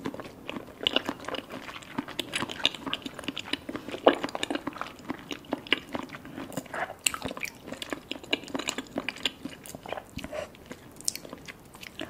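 Close-miked mouth sounds of someone chewing kyoho grape jelly balls: a dense run of wet, squishy smacks and clicks, many a second, loudest about four seconds in.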